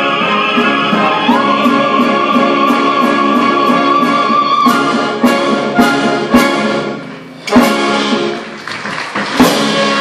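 Live opera orchestra with singers: a high note held for about three seconds, then a series of loud, sharp orchestral chords with brass, closing the number.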